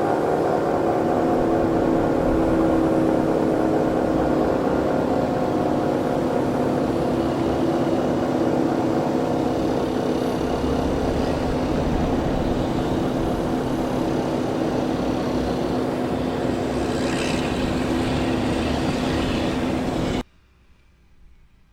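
Outdoor tornado warning siren sounding a steady tone over a rumbling background, cutting off abruptly near the end.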